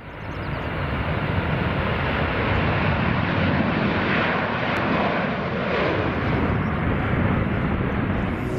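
Boeing 747 jet airliner taking off at full power: a steady, dense rush of jet-engine noise that fades in over the first second and holds.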